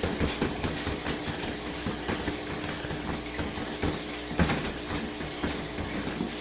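Quick, irregular thumps and slaps of a boxing defence drill, several a second: strikes landing on and being blocked by gloves and pads, over a steady low hum.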